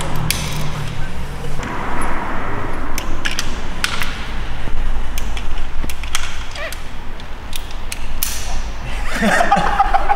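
Scattered clicks and knocks of hand tools and loose metal door parts being handled, over a low steady hum, with a brief voice near the end.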